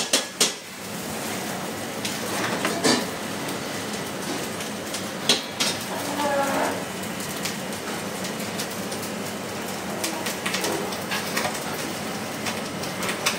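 Steady hiss of rice frying in a steel wok over a commercial gas wok burner, broken by a few sharp clinks of a steel ladle against the wok.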